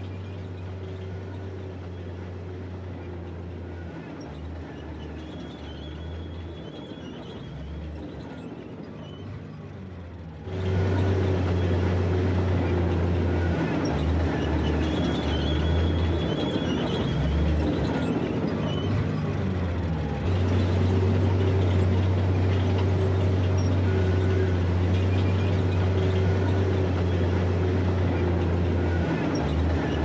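Bulldozer diesel engine running, a steady low drone that turns abruptly louder about a third of the way in and steps up again about two-thirds of the way through.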